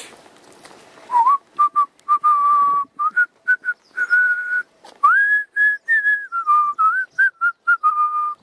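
A person whistling a tune: a run of short and held notes that step up and down, starting about a second in.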